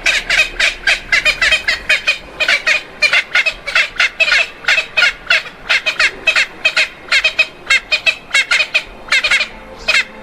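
Birds giving fast, chattering calls, about four or five a second, that keep going without a break.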